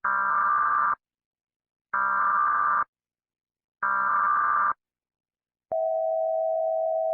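Emergency Alert System header tones: three harsh, buzzy data bursts, each just under a second long with about a second's gap between them, then a single steady alert tone that starts about three quarters of the way in.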